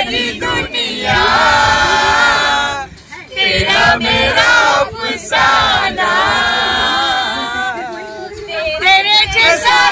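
Several voices singing together without instruments, in long held, gliding notes, with a short break about three seconds in.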